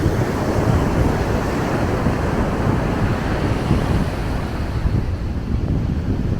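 Ocean surf washing onto the beach, a steady rush mixed with wind buffeting the microphone.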